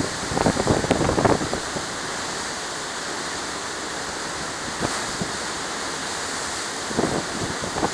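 Steady rush of a ship's churning wake and the open sea, with wind buffeting the microphone in gusts about half a second in and again near the end.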